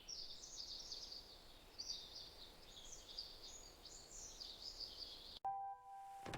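Birds chirping and twittering continuously in a high register over a faint hiss. The birdsong cuts off suddenly about five seconds in, and a soft held keyboard chord begins.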